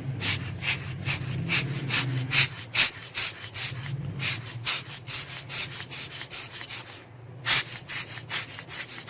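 Quick, repeated rubbing strokes, about three a second, as a watch movement's plate is wiped dry of the benzine it was cleaned in. The strokes pause briefly about seven seconds in, then resume with the loudest one.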